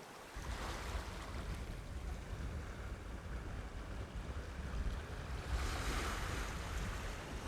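Sea washing against the harbour shore, with wind buffeting the microphone in a low rumble. The sea swells louder about six seconds in, as a wave breaks.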